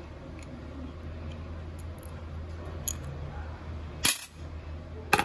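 A small screwdriver prying the snap-on caseback off a wristwatch: a few short metallic clicks as the back pops free and is handled, the loudest a quick double clink near the end.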